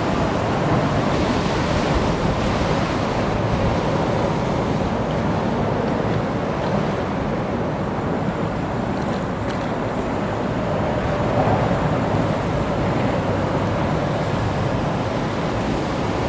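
Steady wind rush buffeting a chest-mounted camera's microphone while riding an electric bike at speed.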